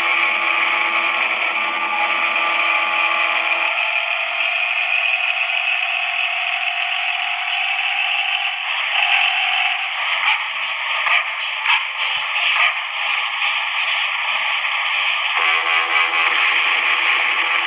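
Sound system under test putting out a loud, steady, noisy sound with no bass. A faint tone rises slowly in the first half, and a few sharp clicks come around the middle.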